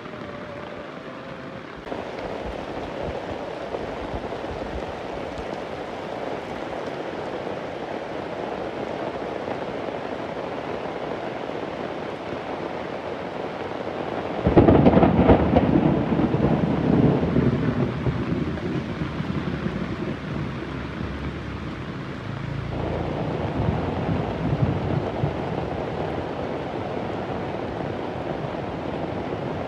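Heavy rain falling steadily, with a sudden loud clap of thunder about halfway through that rolls off over several seconds, and a second, lower rumble of thunder a few seconds later.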